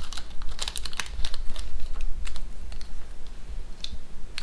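Small packets being handled and lifted out of a ration tin: a string of irregular light clicks and taps.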